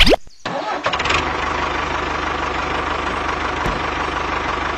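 Tractor engine idling steadily with a fast, even knocking beat, after a short rising sweep at the very start.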